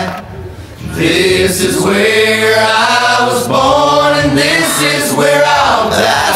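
Country song playing, with sung vocals and backing harmonies; it goes briefly quieter just after the start, then carries on at full level.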